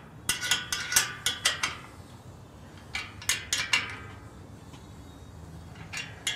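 Wrench working a bolt on a steel headache-rack bracket: three short runs of sharp metallic clicks, about a second and a half near the start, a shorter run about three seconds in, and another near the end.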